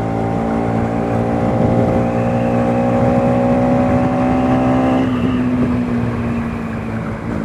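Bajaj Pulsar NS200's single-cylinder engine held high in the revs, above 5000 rpm at around 6000 rpm, under way: a loud, steady note. About five seconds in the throttle eases and the note thins and softens.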